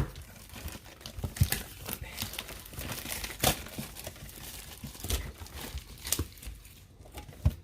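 Plastic shrink-wrap being torn and crinkled off a Pokémon card tin in irregular crackles, with a few low bumps from handling the tin.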